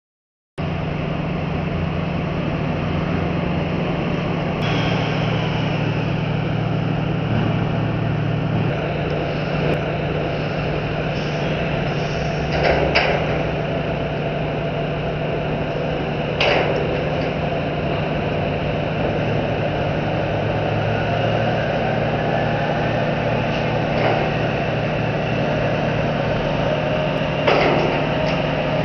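Heavy diesel engine of a terminal tractor running steadily as it tows a refrigerated semi-trailer off a ro-ro ship, with a few sharp metallic clanks.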